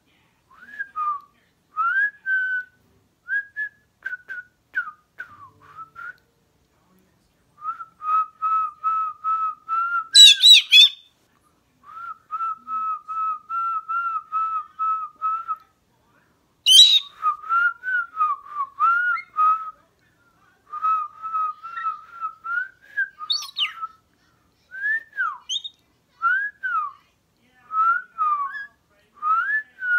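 A person and a pet galah (rose-breasted cockatoo) whistling together in strings of short repeated notes, some held level and some gliding up and down. A few brief, shrill bird calls break in along the way.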